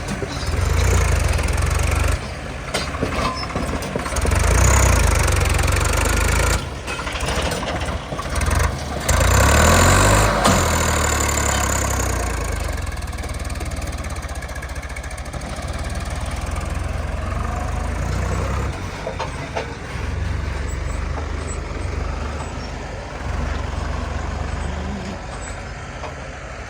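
Heavy diesel engine of a tractor or backhoe loader running with a deep rumble, revving up and back down about ten seconds in.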